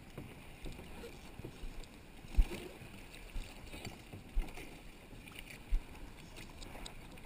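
Dull knocks against a plastic kayak's hull, four of them about a second apart, the first the loudest, over a steady wash of shallow sea water.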